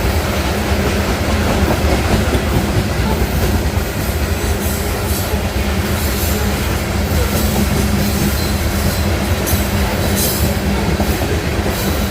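Union Pacific train rolling by: a steady, loud rumble of wheels on the rails, with brief high-pitched wheel squeals from about four seconds in.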